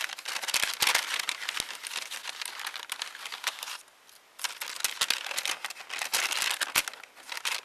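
Packaging rustling and crinkling as items are pulled out of it: a dense run of small crackles and clicks, with a brief pause a little before halfway through.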